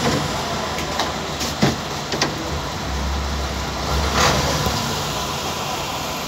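A vehicle engine running steadily with a low hum, with a few sharp clicks in the first two seconds and a short scraping swish about four seconds in.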